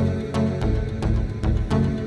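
Background music with a steady beat, about three strikes a second, over deep pulsing bass.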